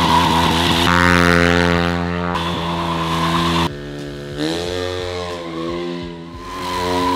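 KTM motorcycle engine held at high revs while the rear tyre spins in a stationary burnout. The audio is cut together from several takes, and about four seconds in the revs drop and then climb again.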